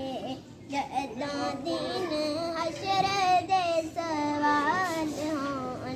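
A child singing a naat, an Islamic devotional song in praise of the Prophet, solo and without instruments, in long gliding, wavering phrases.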